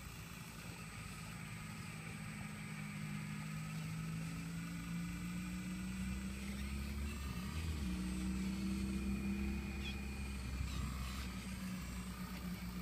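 Excavator engine running steadily, its pitch creeping up over the first several seconds, wavering briefly about seven and a half seconds in, then holding.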